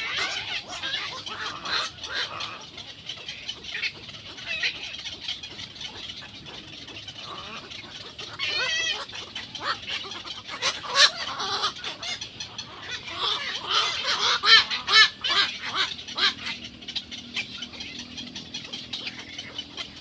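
Egret chicks calling: many short, harsh squawks and chattering notes, coming thickest in the second half.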